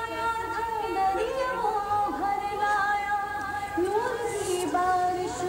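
A woman singing an Urdu devotional song in long held, wavering notes with sliding ornaments, heard through a television's speakers.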